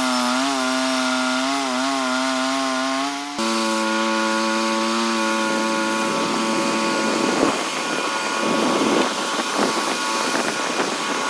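Band sawmill's small petrol engine running under load while the blade cuts through a large locust log. The engine note wavers, then jumps abruptly about three seconds in, and from about seven seconds a rough rasping of blade in wood rises over it.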